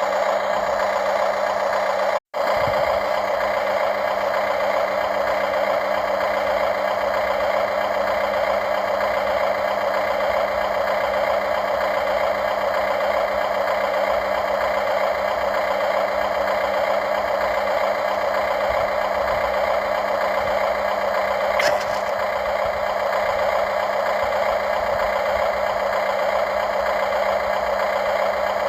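Radio-controlled model excavator running steadily, a continuous mechanical drone that cuts out for an instant about two seconds in.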